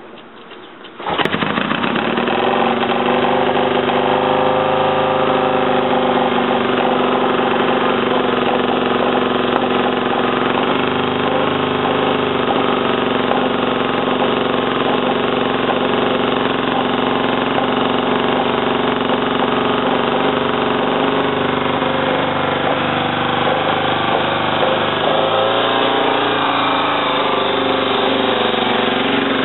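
1971 BSA Lightning's 650 cc parallel-twin engine catching about a second in on its first start after a rebuild, then running steadily, its pitch shifting a little near the end.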